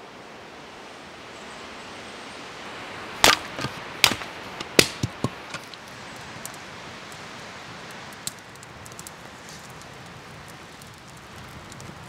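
Campfire of split kindling burning in a steel fire ring: a cluster of sharp, loud pops about three to five seconds in, then lighter scattered crackles over a steady hiss.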